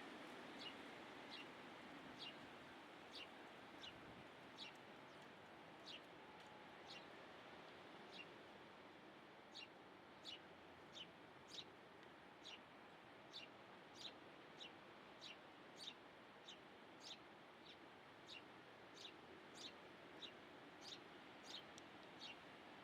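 A small bird calling faintly with short, high chirps that each drop quickly in pitch. They come sparsely at first, then settle partway through into a steady series of about one and a half a second.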